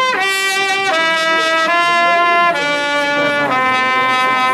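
Solo trumpet playing a slow melody in long held notes, about one note a second, with a bright full tone.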